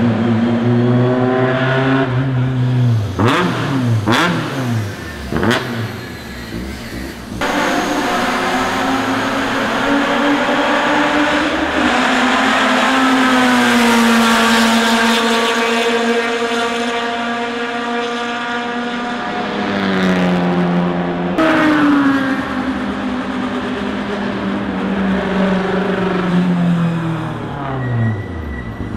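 Proton R3 race cars' engines heard from the pit lane. A car accelerates hard with the pitch climbing and dropping at each gear change, cars sweep past, and near the end an engine note falls steadily as a car slows and comes in.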